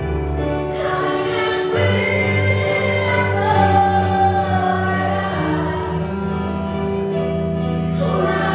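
Live acoustic band playing: a woman sings held notes over a keyboard, a bowed violin and a steady low bass line.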